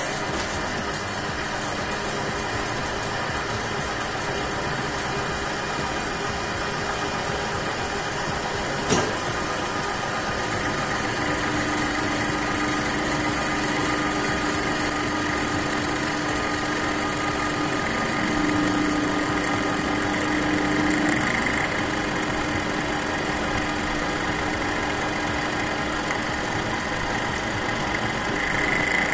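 Metal lathe running, its spindle turning a square bar held in a three-jaw chuck while a cutting tool machines the end of the part: a steady machine hum and rattle. A steady higher tone joins about a third of the way in and fades about ten seconds later, with a single sharp tick just before it.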